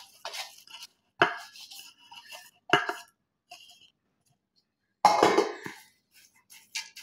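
A plastic spatula scraping and knocking against bowls as roasted seeds are tipped and scraped out of a small bowl into a larger one. There are a few sharp clinks and knocks about a second apart at first, and the loudest comes about five seconds in.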